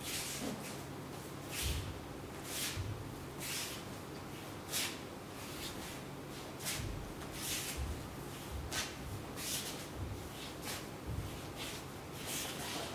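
Short swishes, about a dozen at uneven intervals, as a wooden practice sword (bokken) is swung and cut through the air and the heavy cotton uniform snaps with each move. Soft thuds of bare feet stepping and planting on tatami mats come with several of the swishes.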